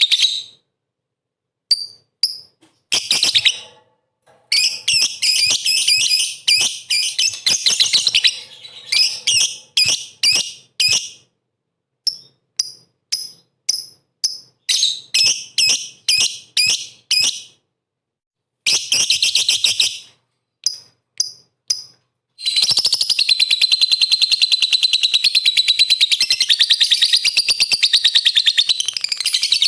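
Lovebird singing: fast, shrill runs of short chirps broken by brief gaps. From about 22 seconds in it goes into one long, unbroken chattering trill.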